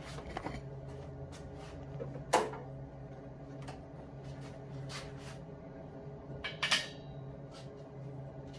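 Steady hum of an inline exhaust fan running, under scattered clicks and knocks of things being handled. A sharp knock comes about two and a half seconds in, and a brief ringing clatter about seven seconds in.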